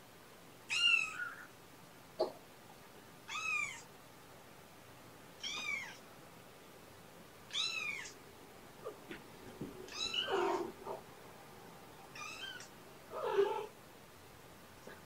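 Kitten meowing over and over, one high call about every two seconds, each rising and falling in pitch. A lower cat meow comes twice in the second half, and there is a brief knock about two seconds in.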